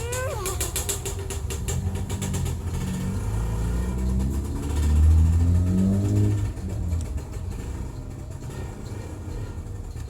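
A motor vehicle's engine revving up as it passes, its pitch rising in several steps, loudest about halfway through, then fading.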